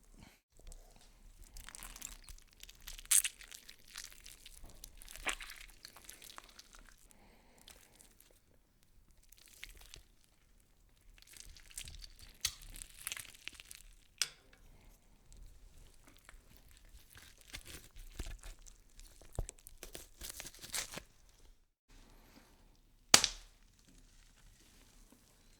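Horror sound effect of crunching and crackling, coming in irregular bursts with sharp cracks and quiet gaps between them; the loudest single crack comes near the end.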